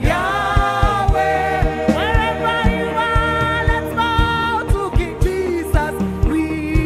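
Gospel worship music: a woman singing long, sliding notes over a band with a steady kick-drum beat.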